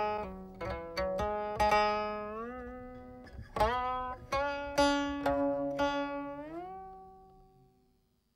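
Solo plucked string instrument playing slow single notes that ring and decay, several bent upward in pitch. The last notes die away to silence near the end.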